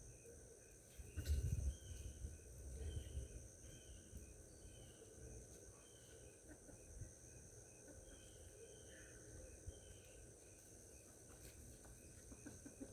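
Garden ambience: insects keep up a steady high-pitched drone while a bird gives short, repeated chirps. A brief low rumble comes about a second in.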